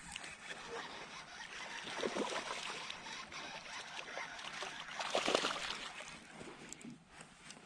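Water splashing and trickling at the side of a kayak as a hooked crappie is brought in, with a louder splash about two seconds in and a stronger one about five seconds in.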